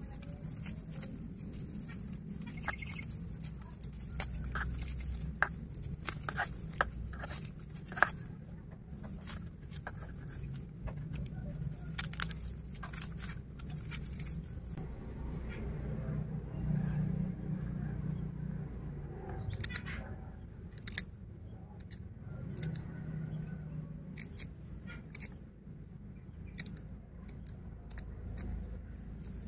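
Irregular light metallic clicks and ticks of bonsai training wire and a small metal tool being worked loose by hand from a tree trunk, over a steady low hum.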